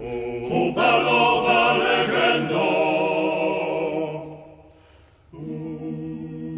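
Male vocal ensemble singing in harmony. The voices die away briefly about five seconds in, then come back on a steady held chord.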